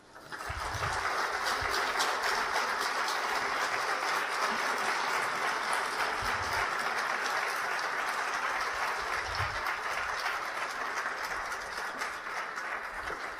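An audience applauding: the clapping starts right away, holds steady, and thins out near the end.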